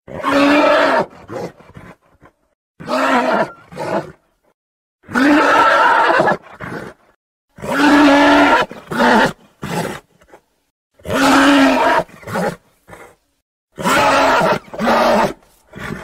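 A monster roar sound effect, repeated about six times. Each roar lasts a second or so and has a steady pitched growl at its core, with short silences between them.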